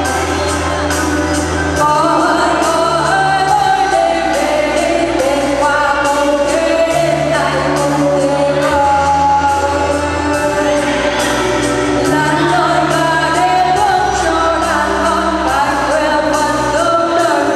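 A girl singing in Vietnamese into a handheld microphone over a recorded backing track with sustained bass notes and a steady drum beat.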